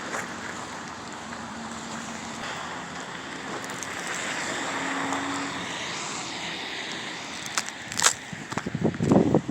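A steady outdoor hiss, swelling a little midway. Then, about eight seconds in, a couple of sharp cracks, and footsteps start crunching loudly on hard, crusted snow near the end.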